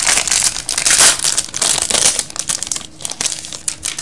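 Wrapper of a 2015 Bowman's Best baseball card pack crinkling and tearing as it is ripped open by hand, the crackle thinning out near the end as the cards come out.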